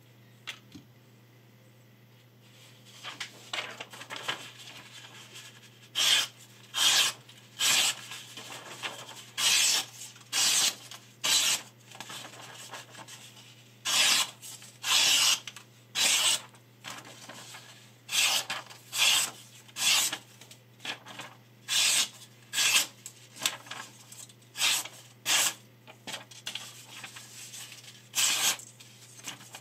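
Short rasping strokes of a steel paring knife blade rubbing against something. They come in groups of two or three, about a second apart, with short pauses between the groups.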